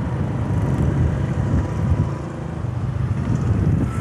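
Honda CG125's single-cylinder four-stroke engine running steadily while the motorcycle rides along, mixed with wind and road noise on the microphone.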